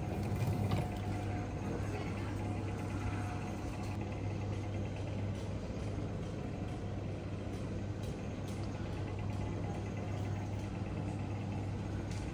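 Steady low hum and even background noise of an airport terminal.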